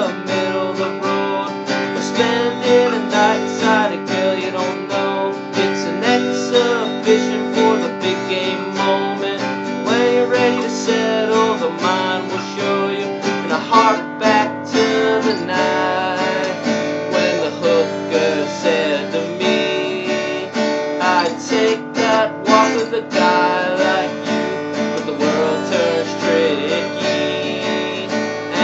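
Music: a strummed acoustic guitar, with a melody line moving over the chords.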